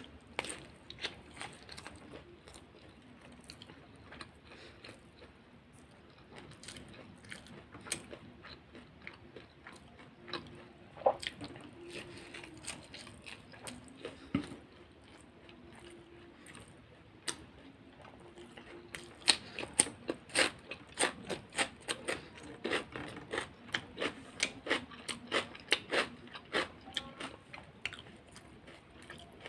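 A person chewing and crunching crisp food close to the microphone: sharp crunchy bites and chewing, sparse for a while, then faster and louder, about two crunches a second, in the last third.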